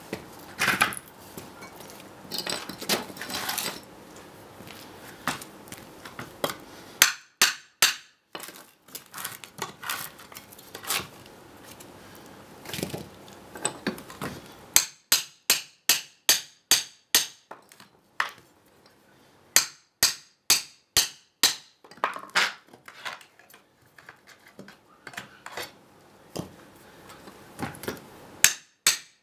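Claw hammer striking a steel pry bar in runs of quick, ringing blows, about three a second with short pauses between runs, driving the bar in to split wooden spacer blocks off an EPAL pallet's base board. Before the hammering starts, a few irregular knocks and clatter of the wooden blocks being handled.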